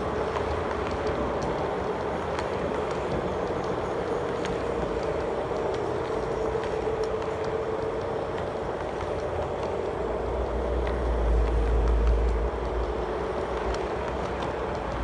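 Model railway flat wagons rolling past on the track: a steady whirr of small metal wheels with a constant hum and faint clicks now and then. A deeper low rumble swells briefly about ten seconds in.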